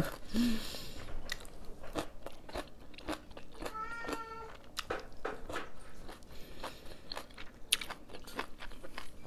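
A person chewing and crunching food close to the microphone, a mouthful of crisp leafy vegetables and rice, in a string of short crisp crunches.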